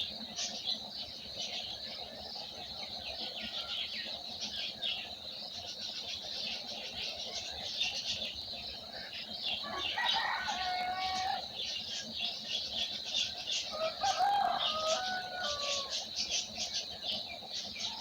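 Many small birds chirping and twittering together in a dense morning chorus. Twice, about ten and fourteen seconds in, a larger bird gives a longer, lower call lasting about a second and a half.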